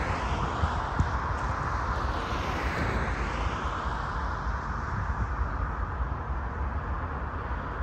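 Cars passing on the road, their tyre and engine noise swelling and fading, over a steady low rumble.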